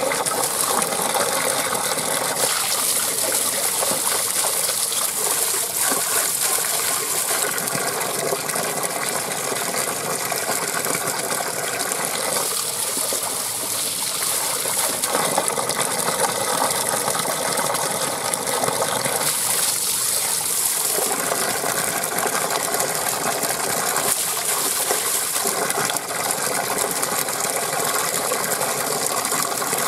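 A spout of water gushing and splashing onto wet rocks as hands rinse vegetables in the falling stream. A faint, steady whirring drone runs underneath.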